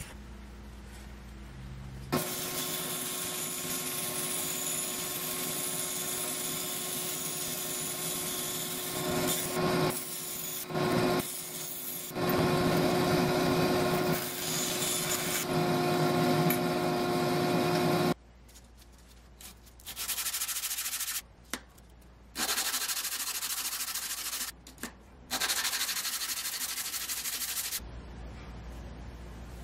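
Bandsaw running and cutting a strip of thin steel saw blade, a steady machine hum with a hissing cut that grows louder while the blade bites into the steel. It stops about 18 seconds in, and several short spells of rasping, rubbing noise with pauses between them follow.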